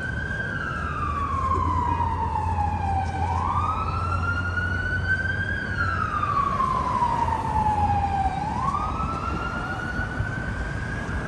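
Emergency vehicle siren on the wail setting: a slow rise and fall in pitch that repeats about every five seconds. Each cycle climbs quickly, then slides down over a couple of seconds.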